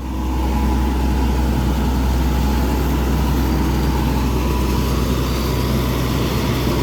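A combine harvester's diesel engine running steadily at close range, with a deep hum and a faint high whine, swelling louder in the first half second.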